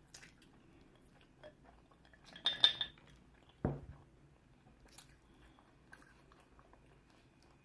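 Cutlery clinking against a dish in a short cluster about two and a half seconds in, followed a second later by a single dull knock and then a lone click, with faint eating sounds in between.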